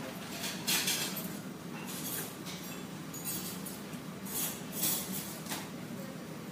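Graphite pencil scratching across textured watercolour paper in several short strokes, over a steady low café hum.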